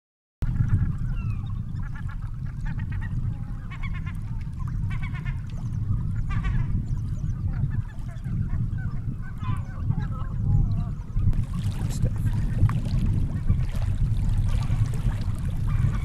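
Seabird colony calling: many overlapping calls over a steady low rumble. The sound cuts in suddenly just after the start, and the calls thin out after about eleven seconds as a noisier rush takes over.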